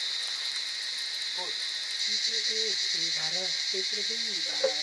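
Steady chorus of insects chirring, with a person's voice talking from about two seconds in.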